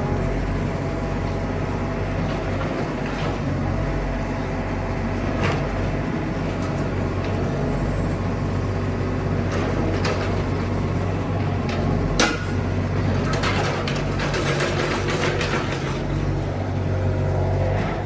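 An engine running steadily, with scattered knocks and clanks: one sharp clank about twelve seconds in, and a run of clattering soon after.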